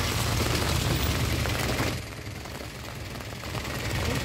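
A small box truck drives past close by on a wet road: engine rumble and tyre noise on the wet surface, dropping off sharply about two seconds in as it moves away, with the engine still heard faintly after.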